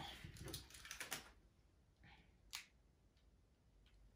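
Faint crackly clicks from someone eating and handling takeout food: a quick cluster in the first second or so, then a single sharp click about two and a half seconds in.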